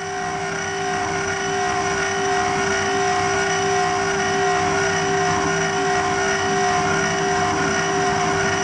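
1.5 kW three-phase spindle of a homemade CNC router running at a steady high whine while its end mill cuts into aluminium plate, with the noise of the cut under the whine.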